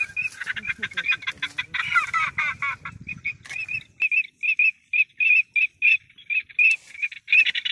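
Ducks calling: a busy run of overlapping squawking calls, then from about four seconds in a steady series of short, evenly spaced calls, about three a second.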